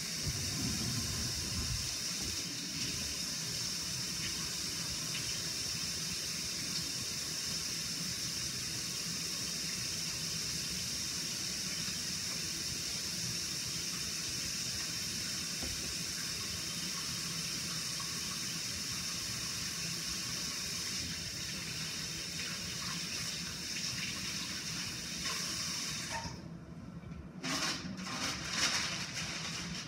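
Kitchen sink tap running steadily while hands are washed under it. The water is turned off about four seconds before the end, and a few short knocks follow.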